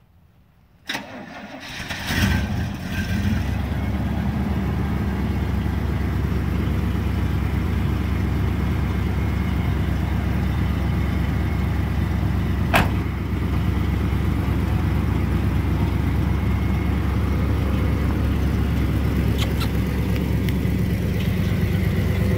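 1979 Chevrolet C10 pickup engine starting about two seconds in, then idling steadily through its newly fitted Flowmaster muffler, fairly quiet with no rattling or knocking from the repaired exhaust. A single sharp click sounds near the middle.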